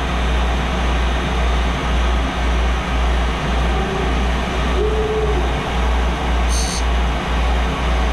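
ANCA CNC tool grinding machine running its cycle on a spiral-fluted cutter, a deep hum that swells and dips about twice a second under a steady mechanical hiss.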